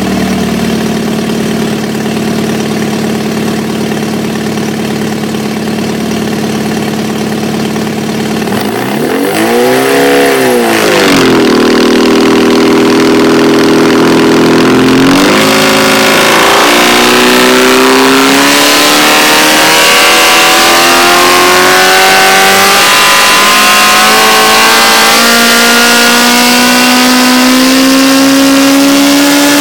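Modified Nissan SR20 2.0-litre four-cylinder engine with individual roller-barrel throttle bodies running on an engine dyno, heard close at its open intake trumpets. It idles steadily, gets a quick blip of the throttle about nine seconds in, is held at higher revs, then after a brief dip its revs climb in a series of short steps, loud, through the rest.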